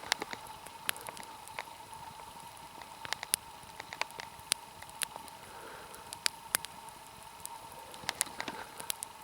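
Campfire crackling: sharp, irregular pops and snaps scattered through, a few each second.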